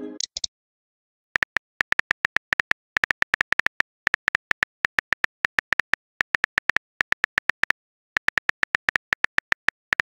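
Simulated phone keyboard key clicks from a texting app, a quick run of sharp ticks about six or seven a second as a message is typed, pausing briefly about a second in and again near the end.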